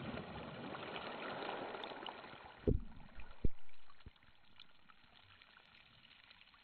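Small waves washing over a pebble beach, a soft, even hiss. A few low thumps come about two and a half to four seconds in, and then it goes near silent.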